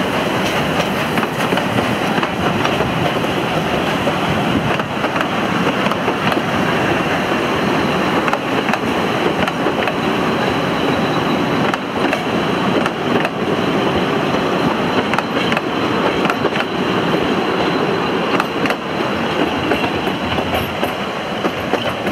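Narrow-gauge Ffestiniog Railway passenger carriages rolling steadily past at low speed, their wheels rumbling and clicking on the rails.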